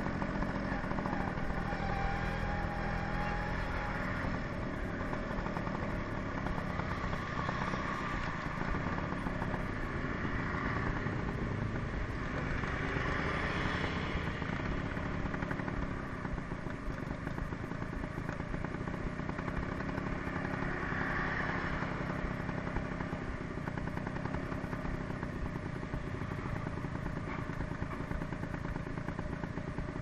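Suzuki motor scooter's small engine running while riding along a street, then idling at a stop from about halfway in, with another motorcycle idling close ahead.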